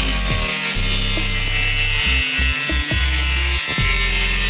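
Angle grinder with a cutting disc cutting through a rusted steel van sill, a continuous high-pitched hiss and whine of disc on metal, over background music with a deep bass line.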